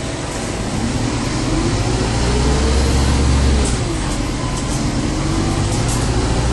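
Volvo hybrid city bus heard from the passenger cabin with its diesel engine running again, a low drone under a whine that rises in pitch as the bus gathers speed. About four seconds in the whine drops back, then climbs again.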